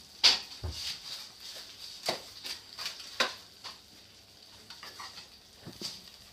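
Kitchen handling noise: a few sharp clicks and knocks and a low thump under a second in, as a block of butter in its plastic wrapper is picked up and handled at the counter.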